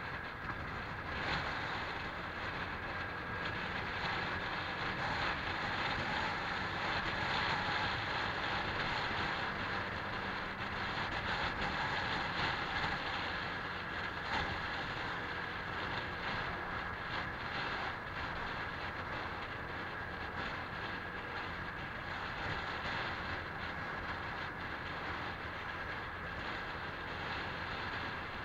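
Honda PCX scooter under way: its engine running steadily, mixed with wind and road noise. The sound swells a little in the middle.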